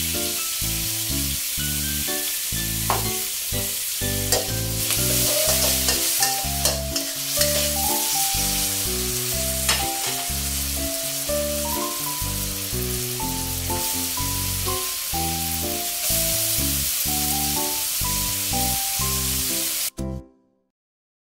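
Bean sprouts, tofu and minced pork sizzling as they are stir-fried in a hot pan, with a few sharp clicks of the spatula against the pan. Light background music plays under it. The sizzle cuts off suddenly near the end.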